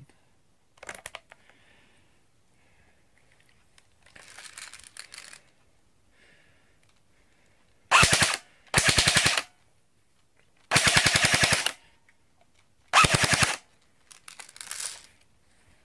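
CYMA G36C airsoft electric gun (CM011) firing on full auto in four short bursts in the second half, its gearbox cycling in a rapid, even rattle of shots. The longest burst lasts about a second. Fainter handling noises come before the bursts.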